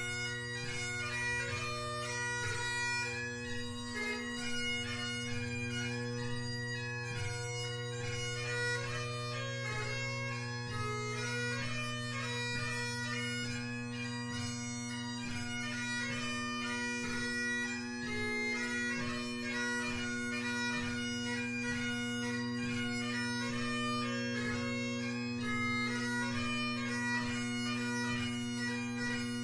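Great Highland bagpipe with McCallum drones and a G1 Blackwood chanter playing a tune: the chanter melody runs in quick notes broken by rapid grace notes over the steady drone.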